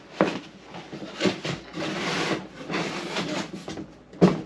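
Rummaging through a cardboard box of packed items: scraping and rubbing of cardboard and packing, with a few sharp knocks, the loudest near the end.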